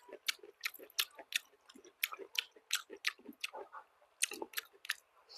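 A person chewing cow tail with the mouth making sharp, irregular smacking clicks, several a second, and a brief lull partway through.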